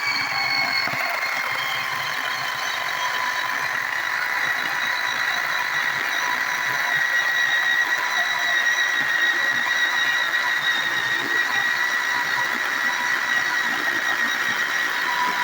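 Battery-powered Powermat 12-inch chainsaw running under load through wood: a steady high electric-motor whine over the rasp of the chain, settling slightly lower in pitch about a second in and then holding.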